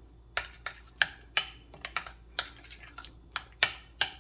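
Metal spoon clinking against a bowl while stirring spices into mayonnaise: a dozen or so quick, sharp clinks at an uneven pace, roughly three a second.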